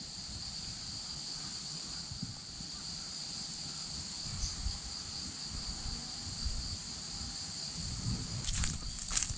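Insects singing, a steady high-pitched chorus, over low rustling, with a few footsteps on dry leaves near the end.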